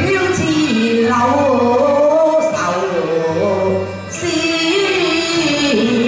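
Cantonese opera song (yuequ) with singing and accompaniment: a slow melody of long, sliding notes.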